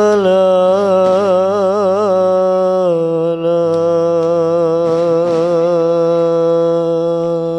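A male voice chanting a devotional melody: a wavering, ornamented line for about the first three seconds, then one long, steady held note.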